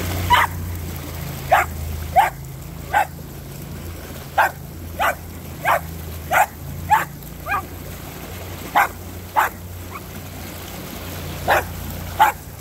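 Jack Russell terrier puppy barking at the river in short, sharp yaps, about fourteen at uneven intervals, over a steady low rumble.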